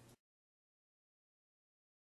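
Silence: the sound track goes completely blank a fraction of a second in, after a brief trace of faint room tone.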